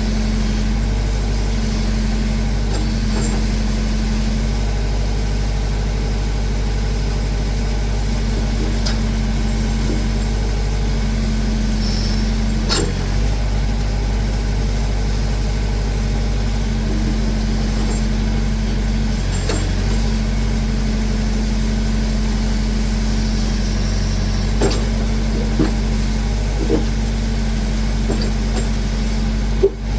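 Massey Ferguson backhoe's engine running steadily under work, with a few short knocks now and then.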